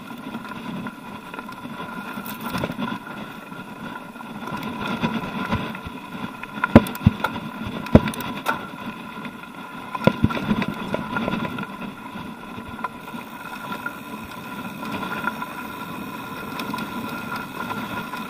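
Mountain bike riding over a rough, stony dirt trail: tyre crunch and frame rattle, with a cluster of sharp knocks near the middle as the bike jolts over rocks.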